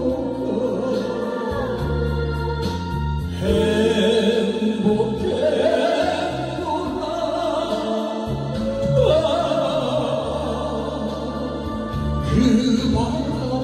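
A man singing a Korean pop ballad into a handheld microphone over a karaoke backing track, holding long, wavering notes.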